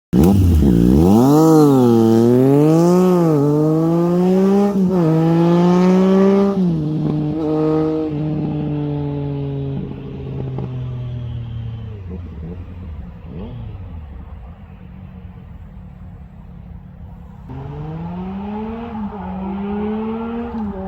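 Triumph Street Triple 765 RS inline three-cylinder engine through an SC Project S1 exhaust, revving up and down several times, then running steadier and fading away. Near the end a fresh run starts, the revs climbing in steps through the gears.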